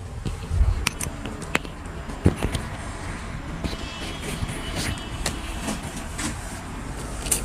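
Steady low rumble with a few sharp clicks scattered through it.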